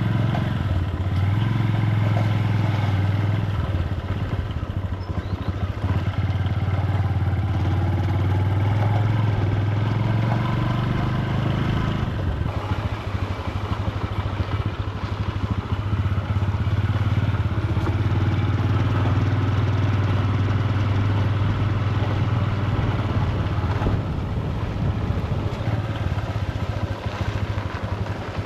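Motorcycle engine running steadily while riding, its note shifting about twelve seconds in.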